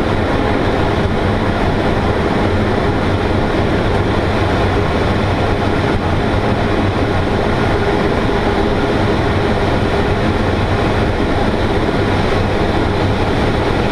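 Steady, loud rush of airflow past the canopy of an MDM-1 Fox glider in flight, heard inside the engineless cockpit.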